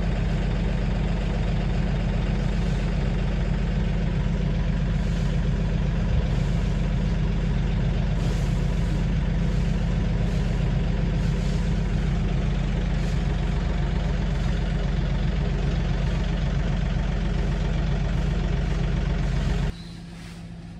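An engine running steadily at idle, cutting off abruptly near the end.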